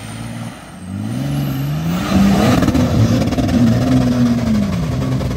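Nissan Patrol's swapped BMW M57 diesel straight-six revving hard under load as the truck claws up a muddy slope, its wheels churning mud. The revs climb about a second in, hold high, then drop back near the end.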